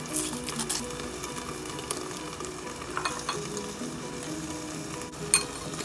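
Broccoli and garlic sizzling steadily in olive oil in a covered pan on the stove, with a few light clicks, the sharpest near the end.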